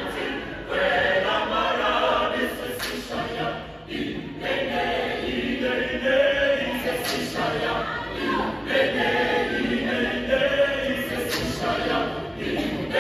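Mixed choir of men's and women's voices singing a cappella, with short breaks between phrases.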